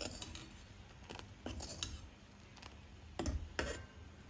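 Steel ladle scraping and clicking against the kadhai while stirring thickening milk kheer: a string of light irregular knocks, with two louder ones a little past three seconds in.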